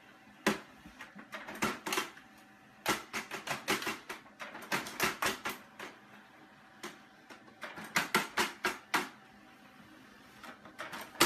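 A cat pawing and batting at a printer, its paws and claws tapping on the plastic and paper in irregular flurries of sharp clicks, with short pauses between them.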